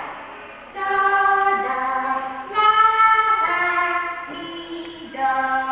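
Singing voices in a stage show song, a melody of held notes that starts about a second in and moves from note to note.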